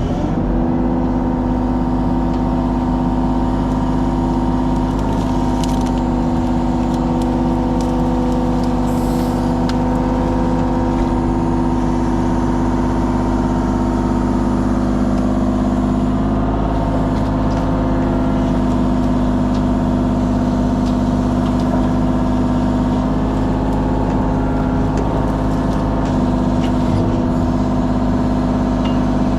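Mini excavator's diesel engine running steadily at a constant working speed while brush is loaded out, with a few faint cracks and clicks.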